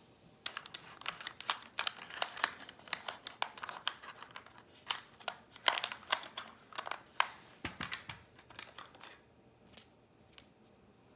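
Small hundred-board number tiles clicking and clattering against each other and a clear plastic compartment box as a handful is taken out. The clicks stop about nine seconds in.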